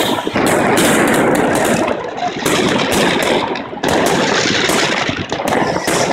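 Fireworks and firecrackers going off close by: a dense, near-continuous barrage of rapid cracks and bangs, with brief lulls about two and about four seconds in.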